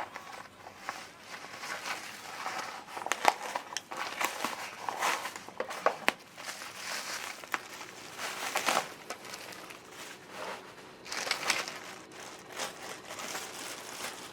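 Irregular crinkling and rustling with scattered sharp clicks, from something crinkly being handled.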